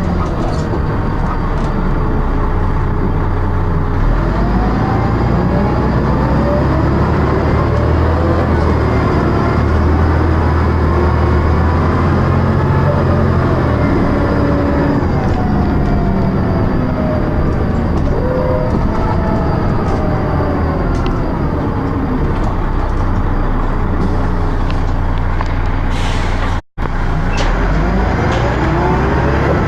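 Dennis Arrow double-decker bus heard from on board while driving: the engine drones low and loud, stepping up and down as it pulls, while several high-pitched whines slide up and down with speed. The sound cuts out briefly about 27 seconds in.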